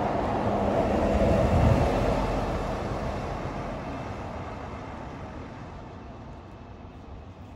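Otokar articulated city bus driving past close by, loudest about two seconds in, then fading steadily as it pulls away.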